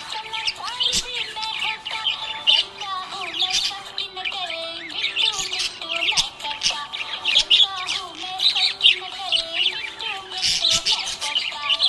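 Budgerigars chirping and warbling continuously: a dense stream of quick, high chirps over lower, held, gliding notes.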